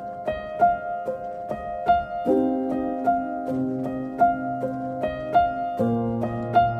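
Background music: short plucked notes in a steady repeating pattern over held chords, which change twice.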